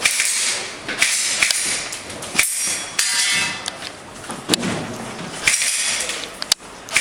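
Airsoft gun firing shot after shot at an uneven pace, roughly one a second, each a sharp crack with a short hiss, mixed with metallic clanks of BBs striking targets.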